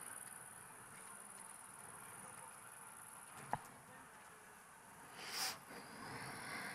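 A quiet pause with a steady, thin high-pitched hiss in the background, a single sharp click about three and a half seconds in, and a short rush of noise a little after five seconds.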